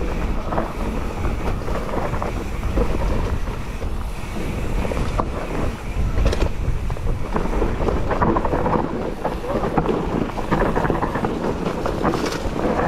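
Mountain bike descending a dirt forest trail: wind buffeting the camera microphone over the rolling of the tyres on dirt and leaves, with frequent rattles and knocks from the bike over bumps.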